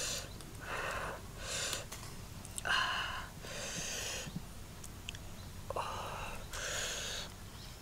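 A person's breathing heard close up: a series of short, hissing breaths, about half a second each, at irregular gaps of roughly a second.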